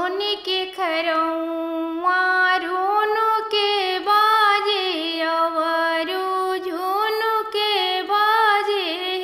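A woman singing a Bhojpuri janeu geet, a traditional folk song for the sacred thread ceremony, in a high voice with sliding, ornamented phrases. Only her voice is heard, with no instruments.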